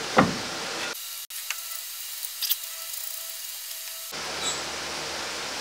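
Steel brake rotor and hub being slid onto the axle stub: a sharp metal clank just after the start, then a few light clicks, over a steady hiss.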